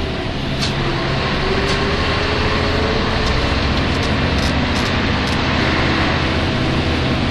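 Nissan Diesel UA city bus (U-UA440NAN) driving, heard from inside the cabin: steady diesel engine and drivetrain noise, with a tone that rises in pitch about a second in. This bus is known for running with an abnormal noise, which the uploader links to vehicles nearing their inspection due date.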